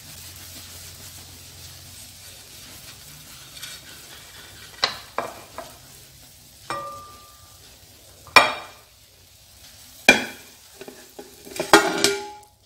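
Oil still sizzling faintly in a frying pan around a vegetable omelette, with the burner just turned off. From about five seconds in come a series of sharp knocks and scrapes as utensils work the omelette out of the pan onto a plate, and one knock rings briefly.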